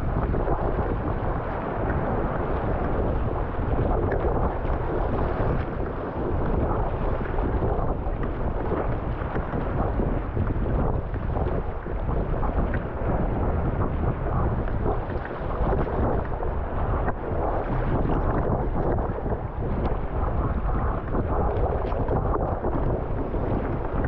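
Gale-force wind buffeting the microphone in a steady, heavy rush, over rough sea water sloshing around a sea kayak.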